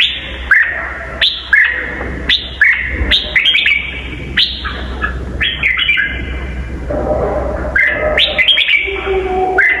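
Red-whiskered bulbul singing: a run of quick, sharp notes that slide down in pitch, coming about once or twice a second, with more warbled phrases near the end. A steady low hum runs underneath.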